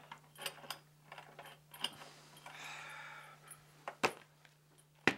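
Small clicks and handling noises from a lamp's socket switch being turned, followed near the end by two sharp clicks about a second apart.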